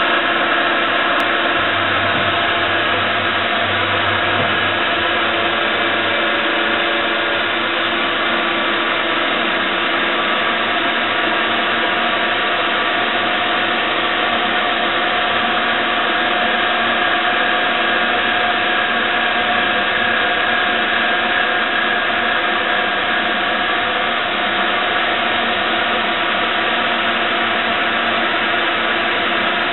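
Rambaudi Versamatic 500 CNC universal milling machine running, its head traversing slowly across the table. It makes a steady whirring noise with a few constant whining tones on top.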